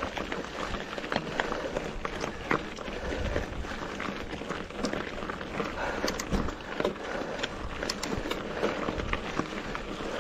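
Mountain bike climbing a stony dirt road: tyres crunching and clattering over loose rocks, with the rider breathing hard.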